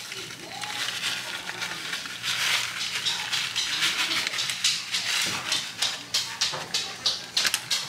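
Plastic bag of shredded Parmesan crinkling as the cheese is shaken and sprinkled out by hand, in quick irregular crackles.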